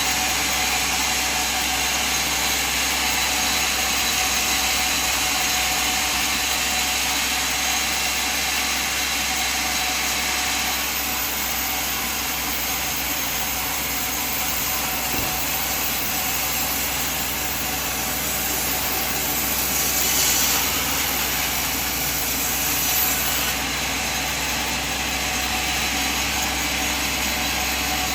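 Sawmill machine running steadily, a constant mechanical hum under a hiss. A higher hiss joins through the middle stretch, with a brief swell about two-thirds of the way in.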